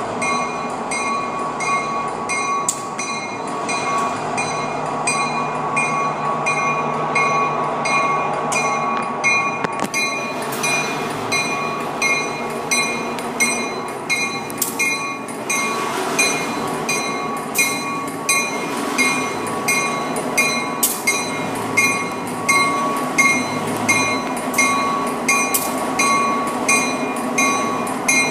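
Diesel locomotive B&O 3802 rolling slowly past with its bell ringing over and over at an even pace, over the low rumble of its diesel engine. There are a few sharp clicks along the way.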